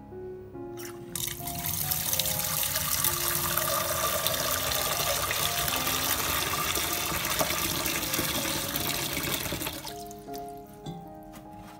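Tap water pouring into a stainless steel pot in a sink, filling it; the flow starts about a second in and stops about ten seconds in. Background music throughout.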